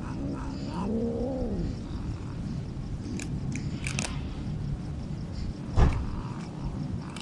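Stray cat crunching dry kibble, with a few sharp crunches around the middle. About a second in, a cat gives a short low wail that rises and falls in pitch. A single loud thump comes near the end.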